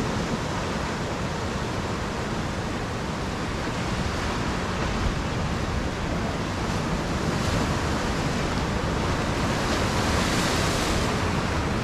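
Ocean surf washing over and around a rocky jetty, a steady rush of breaking water that swells louder as a wave washes in about two-thirds of the way through.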